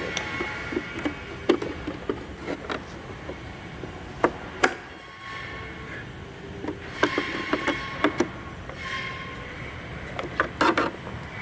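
Sharp plastic clicks and knocks of a pickup's turn-signal marker light housing being pushed and worked into its mounting clips: scattered single taps, with a quick cluster near the end.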